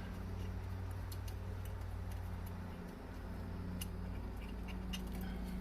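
Scattered small clicks and ticks of a light-fixture bracket and its screws being handled and fitted against the wall, over a steady low hum.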